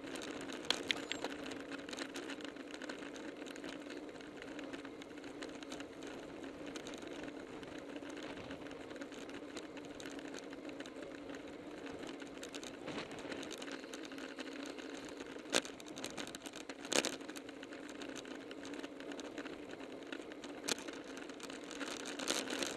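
Steady rolling noise of a road bike in a group ride at about 23 mph: tyres on asphalt, drivetrain whir and wind, heard through a Contour HD action camera on the rider. A few sharp clicks or rattles cut through, two of them close together about two-thirds of the way in.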